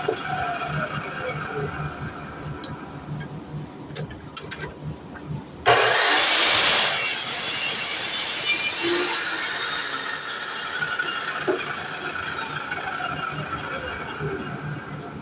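DeWalt miter saw: the motor's high whine slowly winds down. About six seconds in, a sudden loud burst of about a second as the blade cuts through the material, then the whine falls slowly in pitch as the blade spins down. A low pulsing hum runs underneath.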